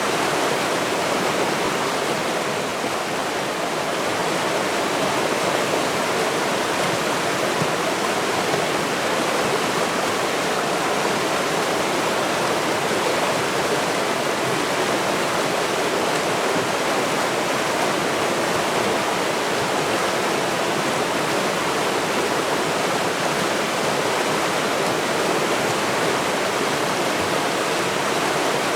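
Flowing river water, a steady unbroken rush.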